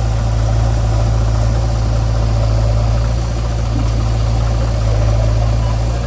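Heavy diesel engine idling steadily, a loud, even low hum with no revving.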